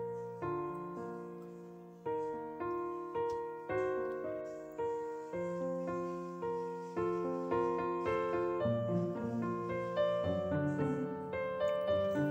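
Background piano music: a slow melody of single struck notes, each fading away before the next, growing fuller with more notes at once in the last few seconds.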